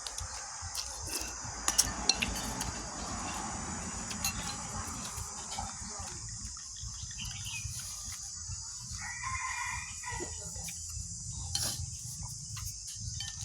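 An animal call about a second and a half long, around nine seconds in, over a steady high hiss and scattered clicks.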